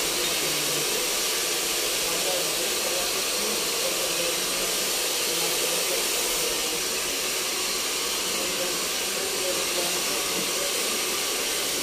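A steady, unbroken hiss of rushing air at an even level, with faint murmuring voices underneath.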